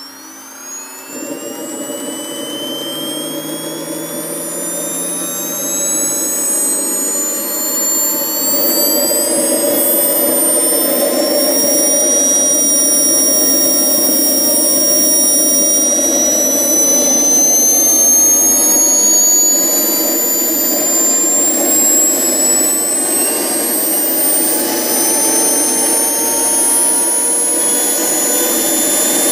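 Wren 100K Pro model jet turbine auto-starting. Its high whine climbs steadily in pitch as the rotor spools up. A rushing combustion noise comes in about a second in and grows louder over the first several seconds. The sound passes through the start, fuel switchover and fuel-ramp stages of the automatic start sequence.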